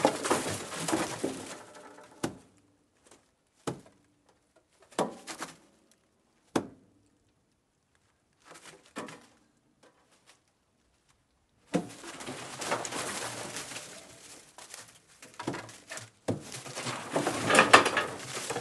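Rabbit sounds: a noisy burst at the start, a few sharp short clicks over the next several seconds, a quiet gap, then longer stretches of rough, noisy sound, loudest near the end.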